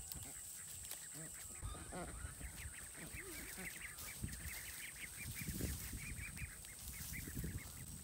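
A small flock of ducks giving rapid, soft, high calls as they follow along, with footsteps and sticks rustling in dry leaf litter.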